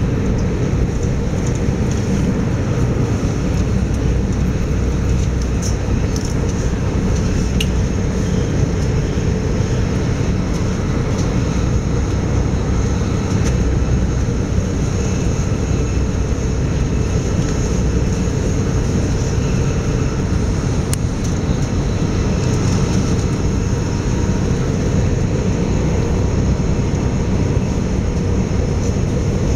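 Steady running noise of an Electrostar electric multiple unit travelling at speed, heard from inside the carriage.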